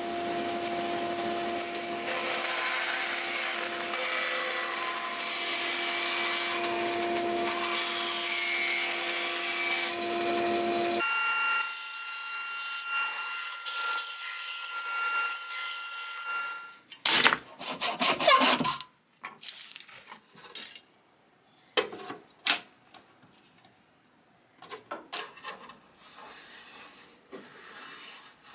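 Bandsaw running and ripping a thin strip of maple, a steady hiss of cutting over a steady hum, for about the first sixteen seconds. It is followed by a burst of loud, sharp wooden knocks and clatter, then scattered small knocks and rubbing of wood.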